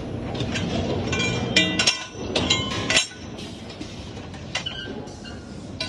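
Metal clinking and knocking from a CNC pipe clamp forming machine working steel flat bar, with short ringing metallic strikes. The clatter is densest in the first three seconds and quieter after that.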